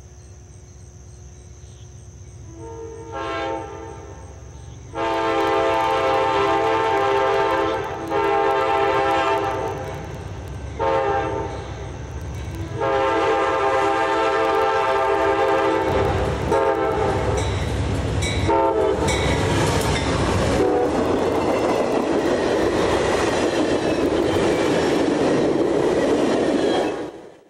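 Locomotive horn sounding the grade-crossing pattern, long, long, short, long, with the last blast held for several seconds, over the low rumble of an approaching train. The train then passes close, with a loud rumble and wheel clatter, and the sound cuts off suddenly near the end.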